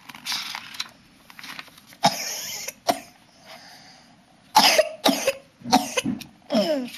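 A person coughing, a quick run of about four loud coughs in the second half, after softer, shorter bursts earlier.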